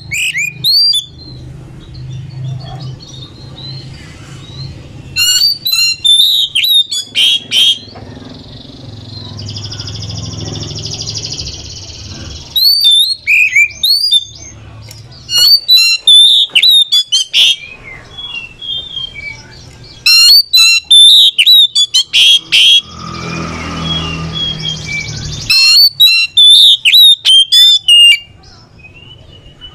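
Oriental magpie-robin singing in loud bursts of rapid, sharply bending whistles and chirps every few seconds, with two longer harsh, hissing stretches between them.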